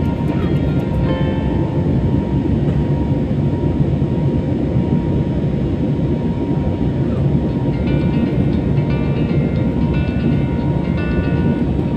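Steady low cabin noise of an airliner in flight: engine and rushing-air noise, even throughout. Faint music plays over it, a few notes near the start and again in the last few seconds.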